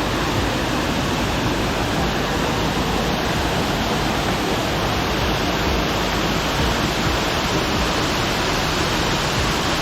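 Rushing water of a small cascading creek waterfall heard up close, a steady, even rush.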